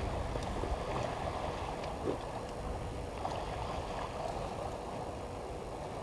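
Water sloshing and splashing as an elephant wades through a waterhole, pushing through the water and moving its trunk in it.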